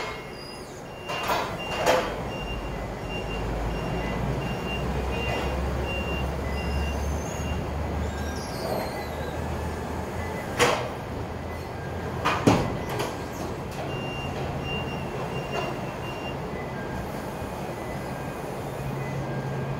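A forklift on the move, its warning alarm beeping in short high pips about twice a second in two spells, over a low motor hum. A few sharp metal clanks and knocks cut through, the loudest about 10 and 12 seconds in.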